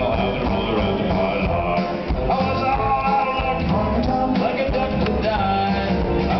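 A rock band playing live: amplified guitar and drums with a voice singing over them.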